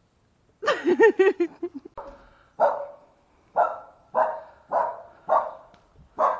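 A dog barking: a quick run of wavering yelps about half a second in, then steady repeated barks about every half second.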